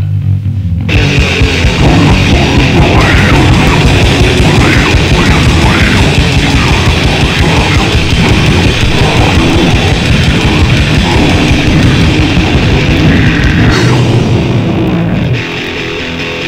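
Grindcore/death metal band recording, loud. It opens on a low, bass-heavy part, and about a second in the full band comes in with a dense wall of sound. Near the end it drops back to a thinner, quieter guitar part.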